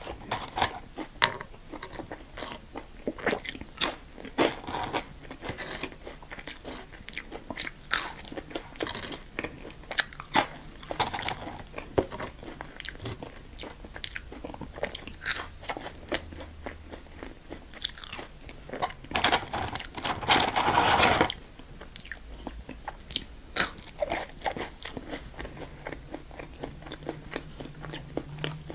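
Close-miked eating of crunchy fast food: repeated crisp bites and crackly chewing. A longer, louder stretch of noise lasts about two seconds, two-thirds of the way through.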